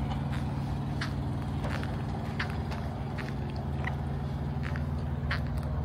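A large engine idling steadily, with scattered light clicks and taps over it.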